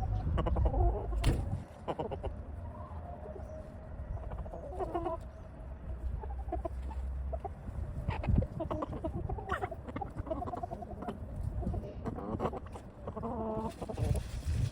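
Chickens clucking, many short calls overlapping, with a low rumble under the first half.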